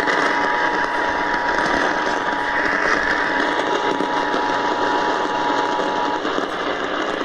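Emergency Alert System attention signal, a steady two-note tone, coming through a radio receiver over heavy static hiss; it cuts off about six seconds in and the hiss carries on. The tone announces that an emergency alert message is about to be broadcast.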